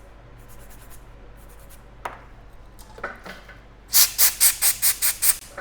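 Scrubbing of a desoldered smartphone CPU to clean off glue residue. Faint rubbing at first, then a loud run of quick rubbing strokes, about six a second, lasting just over a second near the end.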